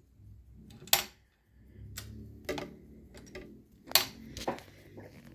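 Sharp mechanical clicks and knocks from parts of a Pfaff 204 sewing machine being handled. The loudest come about a second in and about four seconds in, with smaller clicks between.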